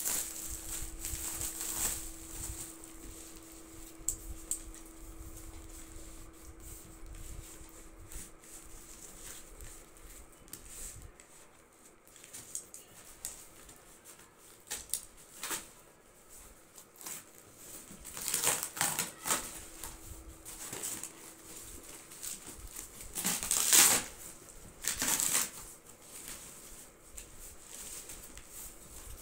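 A taped cardboard shipping box and its plastic wrapping being handled and torn open by hand: scattered rustles and crinkles, with louder bursts of tearing cardboard about two-thirds of the way through and again near the end.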